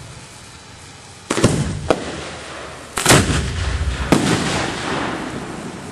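Aerial display firework shells booming four times, the first about a second in and the loudest about three seconds in, each sharp report trailing off in a rumble.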